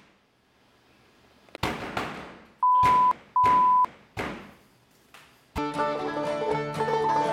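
Near silence broken by a couple of dull thuds, then two loud electronic beeps at one steady pitch, each about half a second long, then two more thuds. Plucked-string music starts up near the end.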